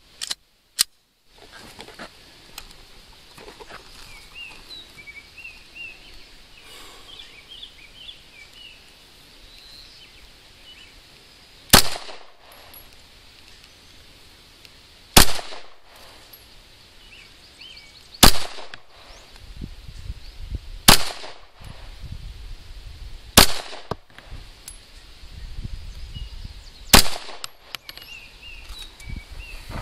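Six handgun shots from a slow string of 10X remanufactured ammunition, fired a few seconds apart through the second half. Each is a sharp crack with a short echo. Small birds chirp faintly before the first shot.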